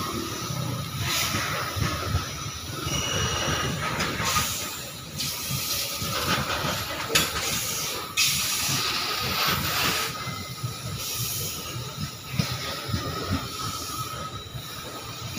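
Loaded coal hopper wagons of a long Babaranjang freight train rolling past: a continuous rumble and hiss of steel wheels on rail, broken by scattered sharp clanks, with a thin steady squeal running under it.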